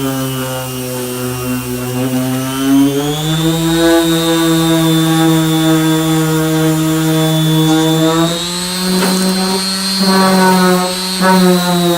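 Electric disc sander with a 240-grit disc running on body filler, a steady motor whine whose pitch rises a few seconds in and sags slightly near the end as the load on the disc changes.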